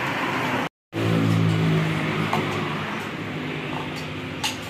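Road traffic noise from a passing car, then, after a cut, an engine running with a low hum that eases off, and a couple of short metallic clinks.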